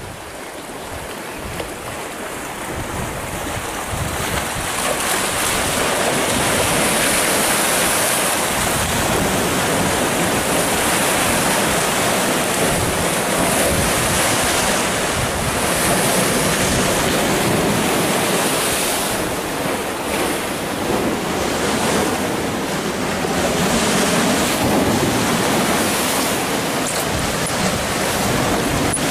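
Sea surf breaking and washing over boulders on a rocky shore, a continuous rushing that swells and eases with each wave. It grows louder over the first few seconds.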